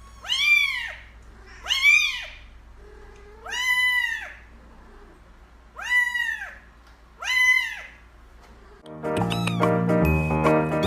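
A cat meowing five times, each meow rising and then falling in pitch, with pauses of one to two seconds between them. Music starts near the end.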